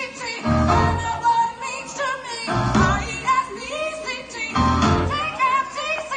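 Recorded soul song playing loudly, a woman singing over a bass line and a steady beat.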